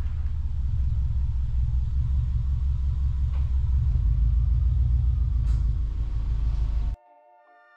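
2005 Subaru Forester XT's turbocharged boxer engine pulling the car slowly in reverse, a steady deep exhaust rumble through its catted downpipe and Borla Hush exhaust. The rumble cuts off abruptly near the end.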